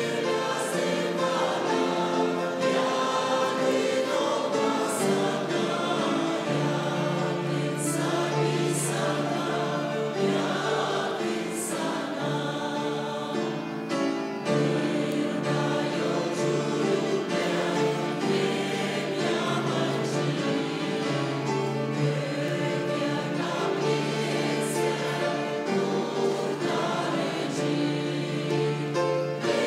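Church choir singing a hymn in Turkish, many voices together on long held notes.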